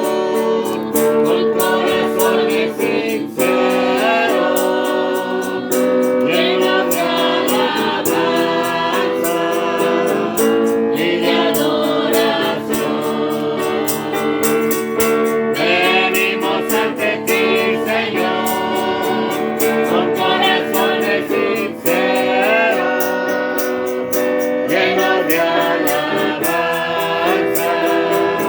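A worship song: voices singing over a strummed guitar.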